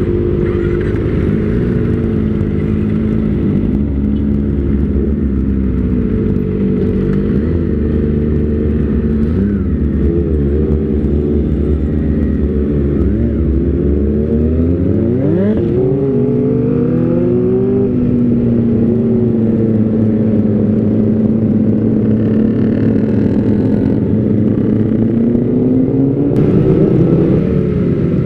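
Kawasaki ZX-25R's 250 cc inline-four engine breathing through an Austin Racing aftermarket silencer while riding. The revs rise and fall through the gears, climbing sharply about halfway through, holding steady at cruise, then rising again near the end.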